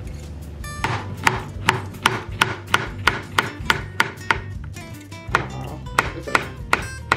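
Kitchen knife slicing a peeled banana on a cutting board: the blade taps the board in a steady run of about three cuts a second, starting about a second in.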